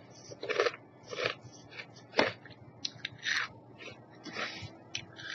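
A person chewing a crunchy spicy pea snack close to the microphone: irregular crunches, with a sharper snap about two seconds in.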